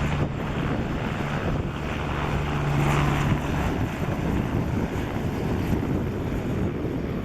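Strong wind buffeting the microphone over a helicopter running nearby; a steady low hum from the helicopter fades out about three and a half seconds in.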